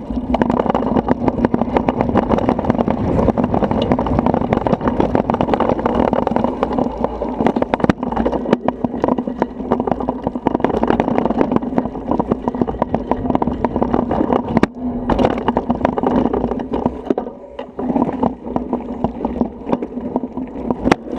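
Bicycle rolling fast over a rough dirt-and-grass trail, picked up by a camera clamped to the handlebars: a continuous rumble of tyres on the ground, with rapid rattling and knocking of the bike and camera mount over the bumps.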